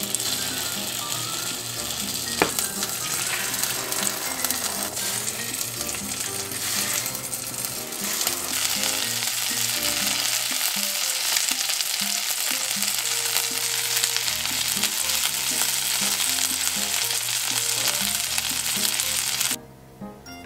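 Egg-battered pollack fillets (dongtaejeon) sizzling steadily as they shallow-fry in oil in a pan, with one sharp tick about two seconds in. The sizzle cuts off suddenly near the end.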